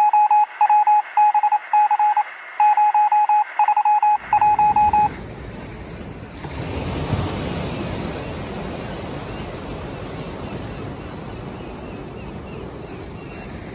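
A single-pitched electronic beep keyed on and off in short and longer pulses, like Morse code, stopping about five seconds in. Then a steady rush of surf breaking and wind on the microphone, swelling briefly about seven seconds in.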